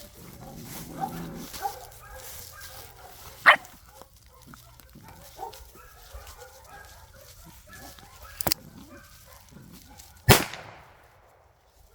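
Seven-week-old Belgian Malinois puppies whining, yipping and growling over their food, with a couple of sharp knocks. Near the end comes a single loud blank shot from a 38 mm launcher, its echo dying away over about a second; the puppies are being conditioned to gunfire.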